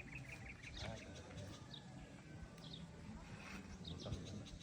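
Small birds chirping: a quick run of high chirps at the start, then scattered short calls, over faint voices in the background.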